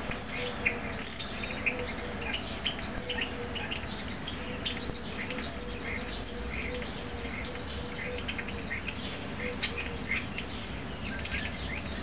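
Outdoor ambience of small birds chirping in short, scattered calls, over a faint low note that repeats steadily about every half second.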